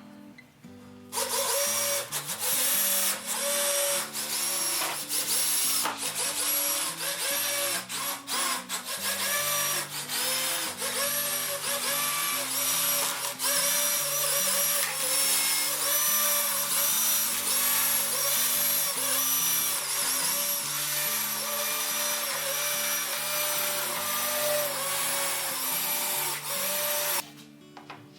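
Power drill running in many short bursts, its motor whine rising and falling with each burst, over background music with a stepping bass line. It starts about a second in and stops just before the end.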